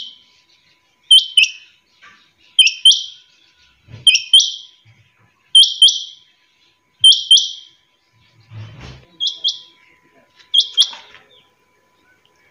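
Caged quail calling: a repeated sharp two-note call, given seven times at roughly one-and-a-half-second intervals.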